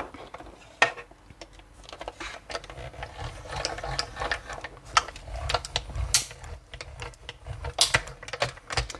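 A paper leaf and a metal die in a plate sandwich being run through a small die-cutting machine: a low grinding rumble from about three seconds in, with clicks and knocks from the plates being handled.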